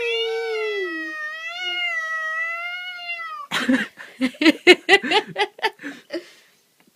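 Ginger long-haired cat giving one long, drawn-out yowl that wavers in pitch and falls away at the end. Then, about halfway through, comes a run of quick, uneven knocks and short sounds.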